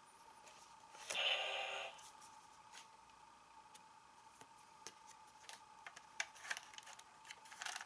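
Kamen Rider Ryuki toy belt and Dragvisor Zwei gauntlet being handled. About a second in the toy gives a short electronic tone lasting about a second. Then come scattered light plastic clicks and taps as a card is drawn and slotted into the Dragvisor.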